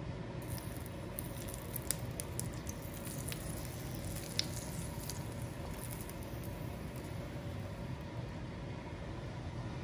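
Beef tenderloin steak searing in a pan of melted ghee: sizzling, with a run of sharp crackles and pops over the first half, two of them louder, above a steady low rumble.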